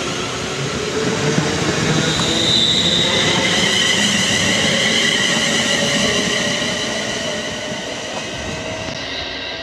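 London Midland Class 350 Desiro electric multiple unit passing at speed: a loud rush of wheels on rail with a steady high whine over it, easing off over the last few seconds as the train draws away.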